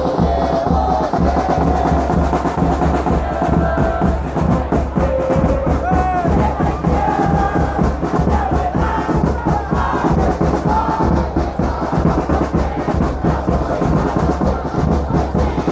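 Football supporters' drums beating fast and steadily, with a crowd's chanting voices over them.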